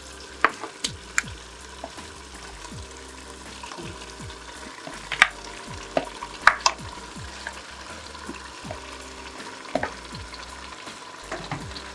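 Ground egusi frying in a pot with a steady sizzle, stirred with a spoon that clicks sharply against the pot now and then.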